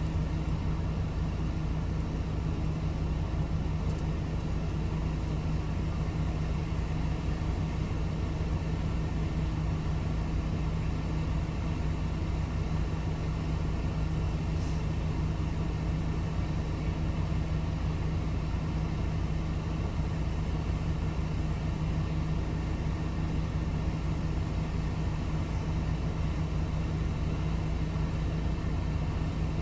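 Steady low engine hum of an idling vehicle heard from inside its cab, with a constant low drone and rumble that does not change.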